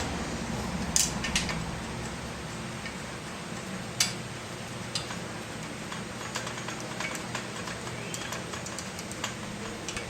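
Scattered sharp clicks and taps of metal trike parts being handled and fitted, the loudest about a second in and at four seconds, over a steady low hum.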